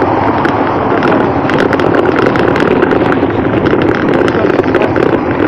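Wind rushing over the microphone of a camera on a moving bicycle, a loud steady roar, with a run of small rattling clicks starting about a second and a half in.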